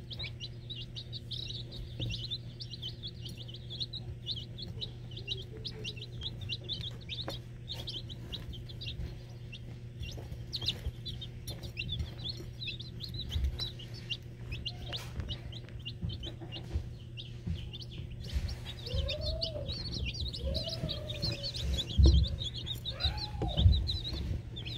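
A brood of young chicks peeping constantly, many short high cheeps overlapping, over a steady low hum. Near the end a few lower, arching calls and a couple of thumps stand out.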